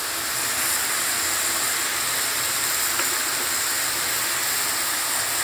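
Cauliflower stalks and mixed vegetables frying in a wok, a steady sizzling hiss.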